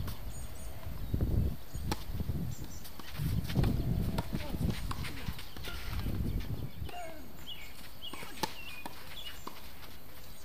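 Tennis balls struck by racquets during a doubles rally: sharp pops spread through the point. Louder low muffled rumbles come and go during the first several seconds, and short bird chirps sound near the end.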